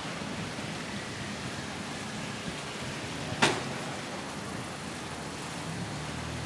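Steady rain falling, a continuous hiss of water, with one sharp click or knock a little past halfway and a faint low hum coming in near the end.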